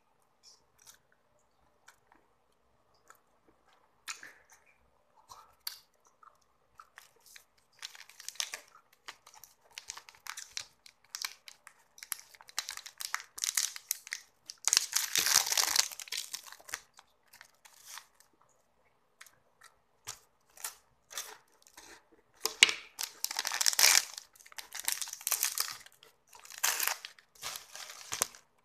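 Plastic wrapper of a Wafu chocolate wafer stick crinkling and tearing as it is peeled open, in repeated bursts, loudest about halfway through and again a few seconds later. A few soft clicks come before it.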